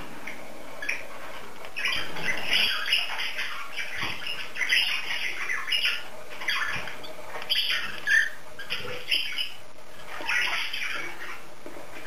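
Cockatiel pecking and husking seeds from a millet spray: crackly little crunches that come in irregular bursts.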